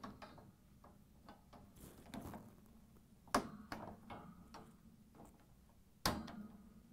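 Wire tine rows of a dishwasher lower rack being raised and clicked into their locked position. Scattered light clicks and rattles of wire, with two sharper clacks, one about three and a half seconds in and one about six seconds in.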